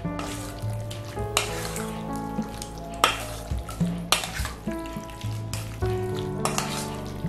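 A metal spoon stirring marinated beef slices in a stainless steel bowl: wet squelching and scraping of the meat with a few sharp knocks of the spoon on the bowl, over background music with a simple stepping melody.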